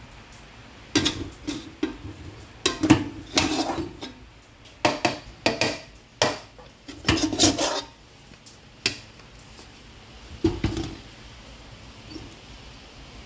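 Ceramic plate clattering and scraping against the rim of an aluminium cooking pot as rice is knocked off the plate into the pot: a quick run of sharp knocks for about seven seconds, then one more a couple of seconds later.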